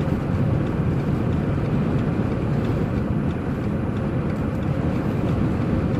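Steady low rumble of a vehicle moving along a snowy highway, heard from inside the cabin: road, engine and wind noise at an even level.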